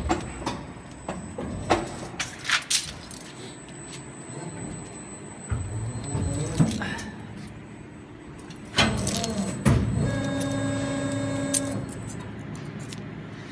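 Freshly injection-moulded clear plastic spoons, still joined on their runner, clicking and rattling as they are handled, over the steady running noise of an injection moulding machine. Near the end a steady tone sounds for under two seconds.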